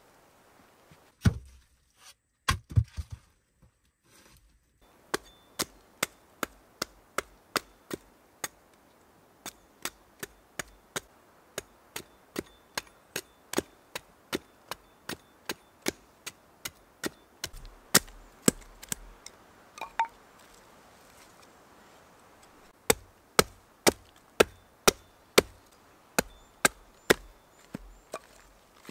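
Hatchet chopping wooden stakes to a point: sharp, quick chops of the blade into wood, about two a second, in two runs with a pause in between. A few heavier knocks come near the start.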